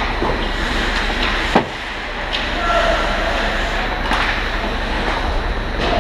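Ice hockey play in front of the net: steady scraping of skates on the ice with clacks of sticks, and one loud sharp crack about one and a half seconds in.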